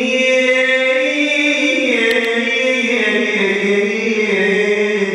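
A man chanting a religious song, holding one long drawn-out sung note that shifts pitch a couple of times, in the melismatic Iraqi style.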